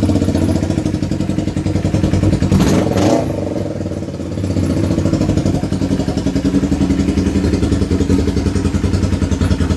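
Kawasaki EX250's parallel-twin engine running loud and raw with no exhaust fitted, on its first start after the carburettors went back in. It swells briefly about two and a half seconds in, dips, and then settles back into steady running.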